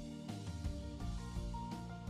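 Background music with a steady drum beat under sustained instrumental notes.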